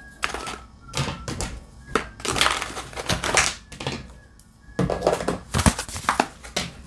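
A plastic pouch crinkling and rustling in the hands in irregular bursts as small tools are packed back into it.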